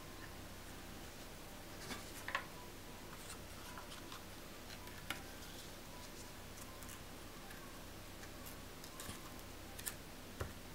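A few scattered light taps and clicks as hands handle a photo print against a wooden frame and its cork board, over a faint steady hiss. The taps come in a small cluster about two seconds in, once more mid-way, and a few times near the end.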